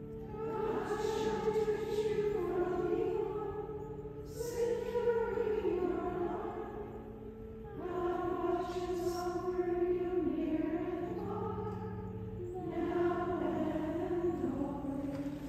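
A choir singing a sacred song in four phrases, over steady held accompanying chords.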